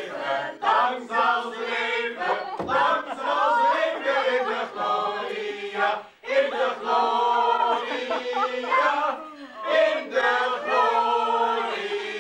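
A group of people singing a birthday song together, in long held notes.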